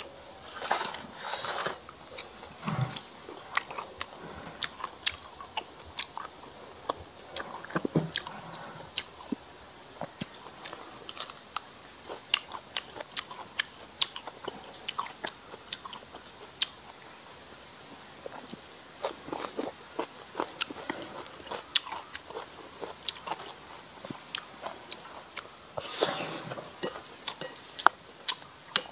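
Close-miked eating: a mouthful of crispy fried pork and rice being bitten and chewed, with many sharp crunches and clicks and a few longer rustling swells.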